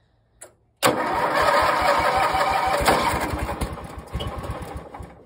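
A small garden-tractor engine starts abruptly about a second in, after a faint click, and runs with a quick, even firing beat that grows fainter toward the end.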